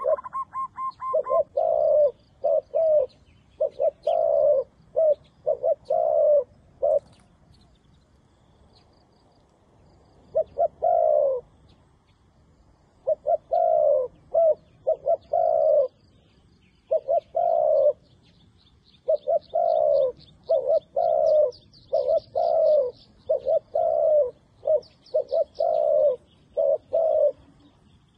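Doves cooing over and over: low, hooting coos in runs of several, with a break of a few seconds about a third of the way through. Faint, high chirping of small birds sounds behind them.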